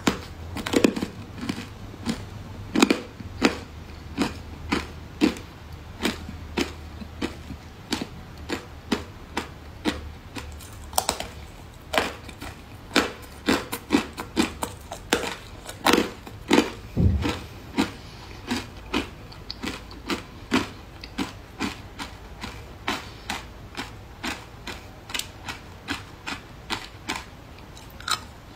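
Thin sheets of ice coated in matcha powder being bitten and crunched, a long run of sharp, crisp cracks a little under two a second.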